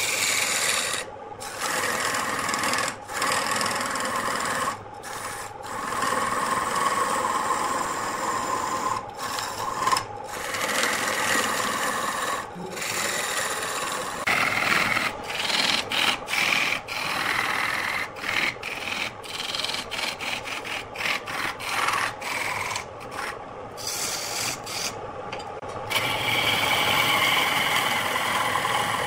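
Turning tool cutting into a wooden blank spinning on a lathe: a continuous scraping, hissing cut, broken by many brief gaps as the tool comes off the wood. The gaps come in quick succession in the middle, and the cutting is louder near the end.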